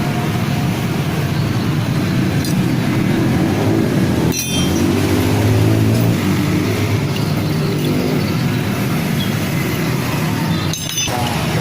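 A vehicle engine running steadily, swelling a little louder about five seconds in, with a brief break about four seconds in and another near the end.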